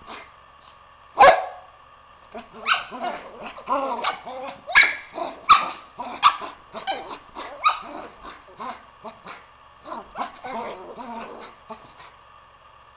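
Poodles barking and yipping as they play-wrestle: one sharp bark about a second in, then a busy run of barks and yips for several seconds, with a few more toward the end.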